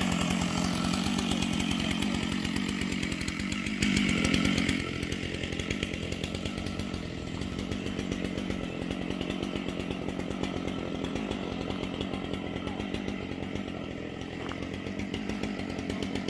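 Stihl chainsaw, mounted on a chainsaw mill, running steadily at a low speed. It revs briefly about four seconds in, then settles back.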